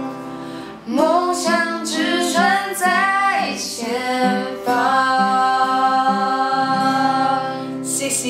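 A female voice sings the closing line of a song over strummed acoustic guitar. She ends on a long held note over the ringing chord.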